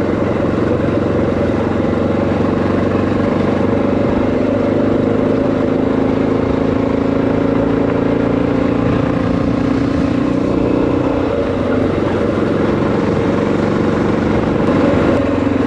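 Honda XR650L's single-cylinder four-stroke engine running under way on a ride, its pitch creeping slowly up for several seconds, dropping briefly about eleven seconds in, then picking up again.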